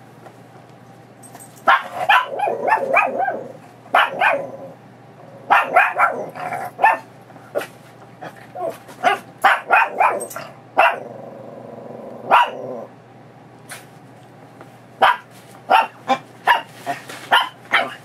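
Small Chihuahua-mix dog barking and yipping in rapid bursts, worked up by excitement as her leash goes on for a walk.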